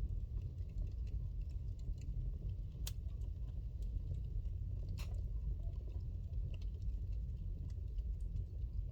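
Wood fire burning in a fireplace: a steady low rumble of flames with scattered small crackles, and two sharp pops from the burning logs about three and five seconds in.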